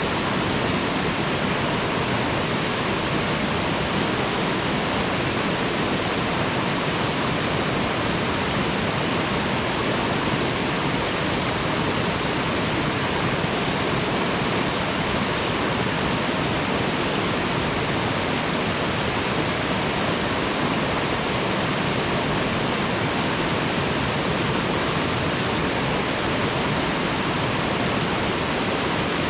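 Waterfall splashing, a steady even rush of falling water.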